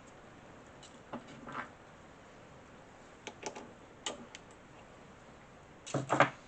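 A few scattered clicks and knocks of parts being handled and set down on a workbench, the loudest cluster near the end.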